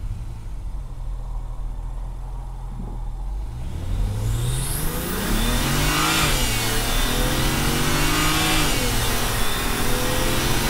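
BMW 335xi's turbocharged inline-six, fitted with a DCI intake, idles, then accelerates hard from a stop. Its note rises through the gears and drops back at two shifts, with a loud intake and turbo whoosh and a rising turbo whistle coming in as boost builds.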